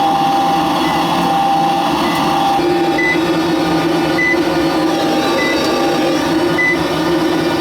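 York 90+ gas furnace running after being relit: a steady mechanical hum with a high whine, getting fuller about two and a half seconds in. A short high beep repeats about once a second.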